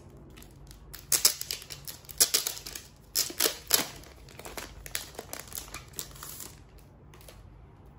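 Clear plastic sleeve crinkling as hands pull it open around a postcard set, a dense run of sharp crackles that dies down near the end.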